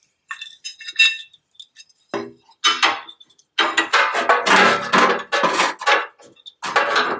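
Metal clinks and ringing of a steel bolt and washers being handled, then from about two seconds in a run of louder metallic knocking, rattling and scraping as the steel aftermarket bumper is pushed and shifted against the Jeep's frame.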